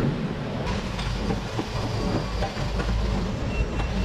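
A steady low mechanical drone of shop machinery, with scattered light metal clicks and clinks as steel plates and a bar clamp are handled.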